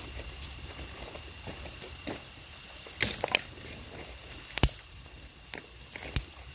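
Several sharp, separate wooden cracks and snaps, like dry wood splitting, spread over a few seconds, the loudest a little past the middle, over a low steady background rumble.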